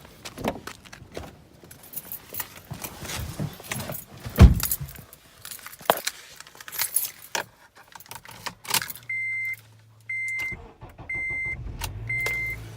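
Keys jangling with a run of clicks and knocks, then a 2004 Acura TSX's warning chime beeping steadily about once a second. Near the end the engine starts and runs with a low hum: the no-start is cured by the new alternator and battery.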